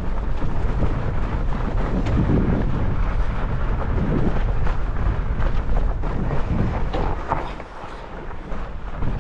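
Wind buffeting the microphone over the rumble of a Salsa Bear Grease fat bike's tyres rolling over a thinly snowed forest trail, with light clicks and rattles from the bike. The noise drops for a moment near the end.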